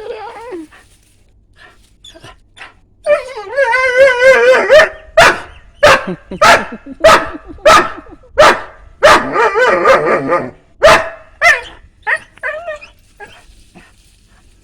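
A dog gives a long, wavering cry, then barks sharply over and over, about one and a half barks a second. Another wavering cry follows, then a few more barks that fade toward the end.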